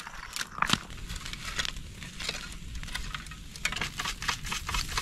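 Wood bonfire crackling, with frequent sharp pops and snaps over a low steady rumble.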